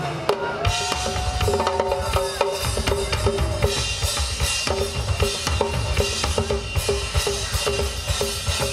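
Drum solo on an acoustic rock drum kit: a dense stream of pitched tom and snare hits over a busy bass drum, with cymbals washing in after a few seconds.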